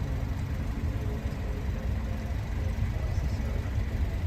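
Steady low rumble of a car's engine and running gear heard from inside the cabin as it rolls slowly along.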